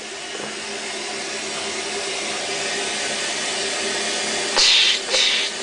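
A steady hiss that grows slowly louder, then two short, sharp splashy bursts near the end as a toilet plunger is rammed into the clogged bowl.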